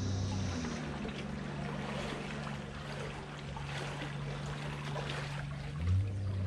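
Water sloshing and trickling as people wade through knee-deep shallows, over a low steady drone that steps up in pitch about half a second in and drops back down near the end.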